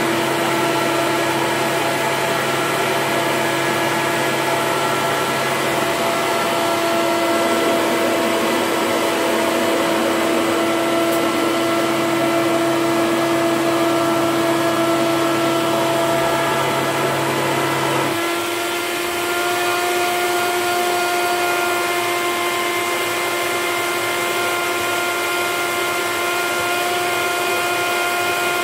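Hoover Commercial Dual Purpose upright vacuum cleaner (C1417) running steadily. About two-thirds of the way through, its low hum drops away and the motor note steps slightly higher. The owner thinks its sound comes from a cooling fan clogged with dirt.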